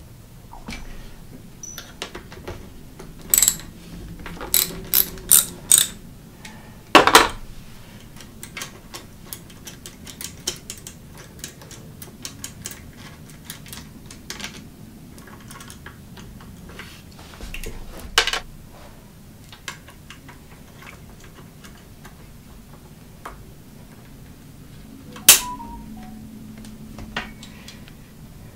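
Scattered sharp metal clicks and clinks from handling a bicycle V-brake arm and its brake-pad hardware. There is a quick run of four clicks about five seconds in, and louder single clicks later on, one followed by a brief ring.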